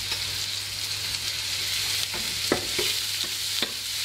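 Lean beef mince sizzling in hot oil in a frying pan, with a steady hiss. A metal spatula clicks sharply against the pan twice near the end as the meat is broken up.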